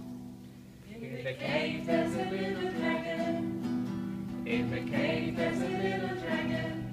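Acoustic guitar strummed, with singing voices coming in about a second in.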